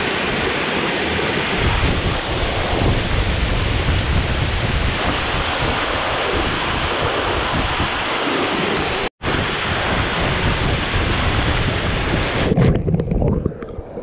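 Waterfall pouring over rock into a pool, heard close up as a loud, steady rush of water with low rumbling buffeting on the microphone. The sound drops out for an instant about nine seconds in, and near the end it turns muffled.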